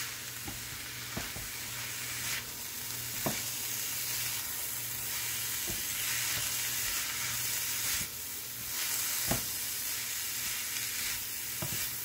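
Riced cauliflower with diced tomato and bell pepper sizzling in a hot frying pan as a wooden spatula stirs it, with a few short knocks and scrapes of the spatula against the pan.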